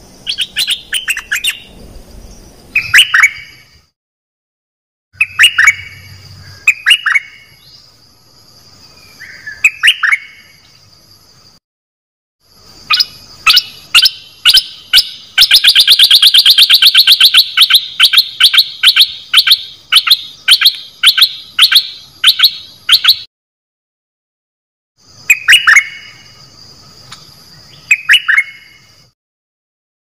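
Caged bulbul (นกดอกแตง) singing loud phrases of quick, sharp, downward-sliding notes, with a long fast run of sharp repeated notes in the middle. The recording cuts to silence abruptly three times between phrases.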